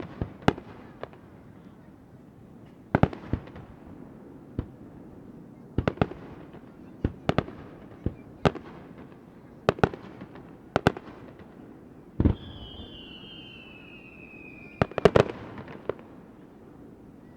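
Aerial firework shells bursting in a string of sharp bangs at irregular intervals. About twelve seconds in, a whistle falls steadily in pitch for two or three seconds, then a quick cluster of bangs follows.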